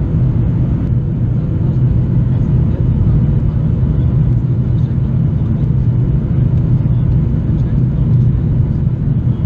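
Steady cabin roar inside a Boeing 737-800 on its descent: the CFM56 turbofans and the airflow over the fuselage, heard through the window seat as a loud, even low rumble with a faint steady hum above it.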